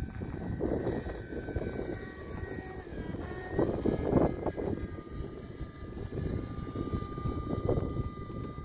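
Radio-controlled delta-wing model jet flying overhead, its motor whining, with the pitch dropping about three seconds in and then holding steady. A noisy low rush, loudest about four seconds in, runs underneath.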